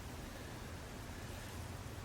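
Steady hiss of outdoor night ambience with a low, uneven rumble underneath and no distinct events.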